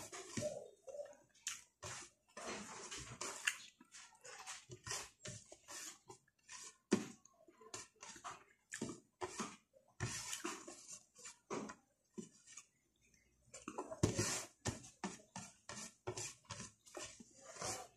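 A man eating close to the microphone: wet chewing and lip smacking, an irregular run of short smacks and clicks several times a second.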